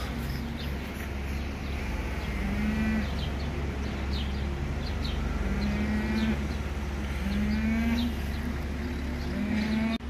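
Cows mooing: four drawn-out moos a couple of seconds apart, over a steady low hum.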